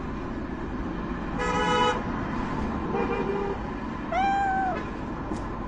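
A car horn gives one short toot about a second and a half in. About four seconds in, a domestic cat gives a single meow that rises and falls, over a steady hum of street traffic.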